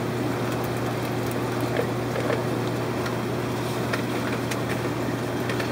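Steady hum and hiss of fishroom equipment, aquarium pumps running, with a few faint clicks and rustles from handling a plastic fish bag.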